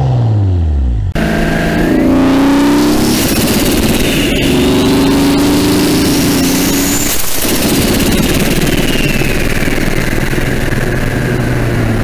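Turbocharged 3.4-litre stroker Toyota 2JZ straight-six in a BMW E36 pulling hard, its note climbing and then holding under a high whistle that keeps rising. About seven seconds in it lets off abruptly, and the whistle winds down slowly while the engine settles to a low steady note.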